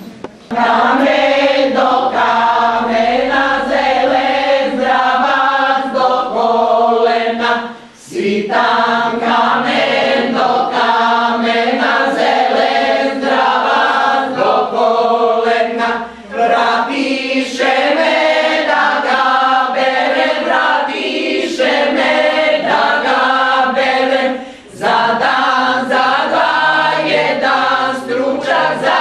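A small women's choir singing unaccompanied, in long held phrases that break off with a brief pause about every eight seconds.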